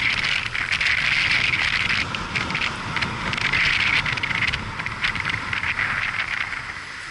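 Rushing noise of a motorcycle on the move, recorded from the rider's camera, with wind on the microphone and a crackly hiss that eases off slightly near the end.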